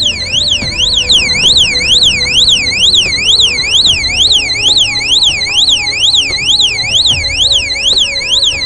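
Solar motion-sensor security light's built-in alarm siren sounding loud and shrill, its pitch sweeping up and down a little over twice a second without a break. Background music plays underneath.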